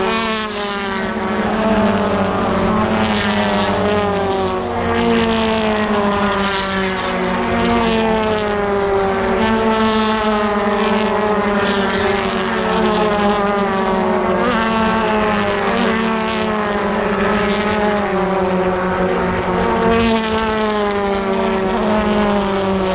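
British Touring Car Championship cars, with 2-litre turbocharged four-cylinder engines, racing past one after another at speed. Each engine note drops in pitch as the car goes by, and the sound of the pack runs on without a break.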